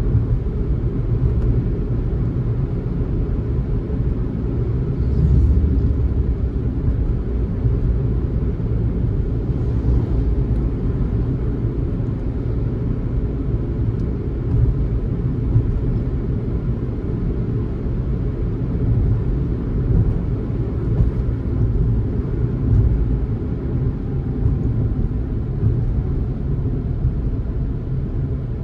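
Car driving at a steady road speed: a continuous low rumble of road and engine noise that holds even throughout.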